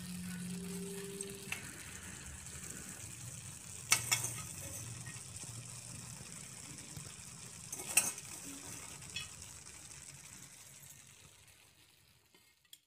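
Bread manchurian gravy sizzling softly in a pan as chopped coriander leaves are scattered over it, with two sharp clicks a few seconds apart. The sizzle fades out near the end.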